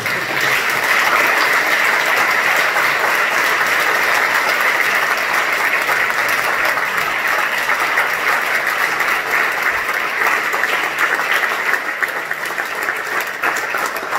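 Large audience applauding: a long, steady round of clapping that builds up at the start and eases a little near the end.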